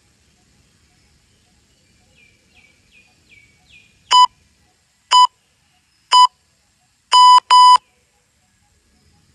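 Electronic interval-timer beeps: three short beeps a second apart, then two longer beeps in quick succession, marking the end of an exercise interval. A few faint high falling chirps come just before the beeps.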